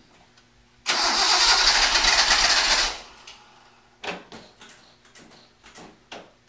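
Datsun 260Z's straight-six engine cranked on the starter for about two seconds without catching, followed by a series of short clicks or knocks, then cranking again at the very end. The carburettors have been primed by hand because the new fuel pumps have not yet drawn fuel through.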